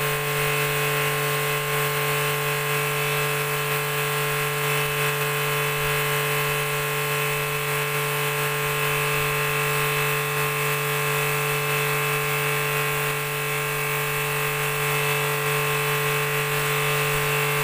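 Pressure washer running steadily: a constant motor-and-pump drone with the hiss of the water jet spraying onto a concrete floor.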